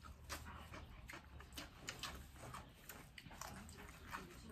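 Close-up crunching and chewing of crisp raw greens from a singju salad by several people: a string of small sharp crunches and mouth clicks.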